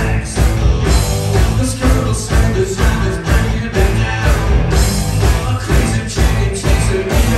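Live rock band playing with electric guitar, electric bass and a drum kit keeping a steady beat, with the lead singer singing into the microphone.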